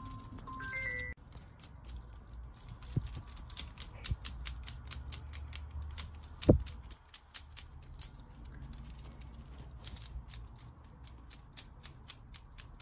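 Rapid, irregular clicking with light rustling and one loud low thump about halfway through. A few notes of background music end about a second in.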